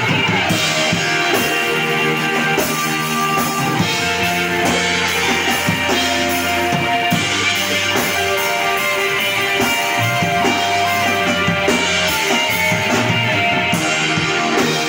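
A loud live screamo band playing electric guitars and a drum kit.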